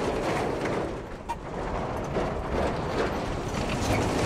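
A road train passing close by: its trailers rolling and rattling over a steady, rough road and engine noise.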